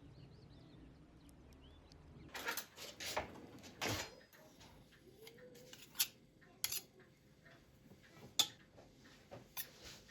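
Irregular clinks and knocks of kitchen utensils against dishes, about a dozen sharp strikes after a quiet first two seconds.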